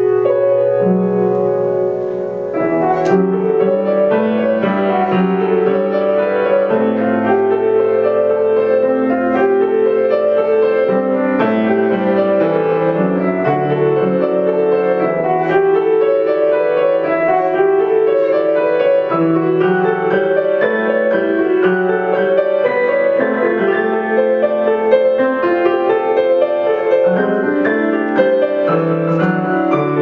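Two grand pianos playing a classical piece together in an arrangement for two pianos, a continuous stream of chords and runs.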